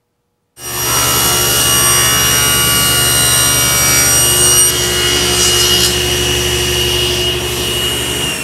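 Table saw running, ripping a board that is fed with a push stick past the splitter of a plywood throat plate. The sound starts suddenly about half a second in, a steady whine with several tones.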